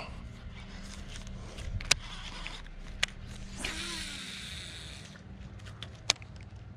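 Baitcasting reel handled during a cast: a few sharp clicks, and a whirring hiss of line running off the spool for a little over a second, about midway through. A low steady hum runs underneath.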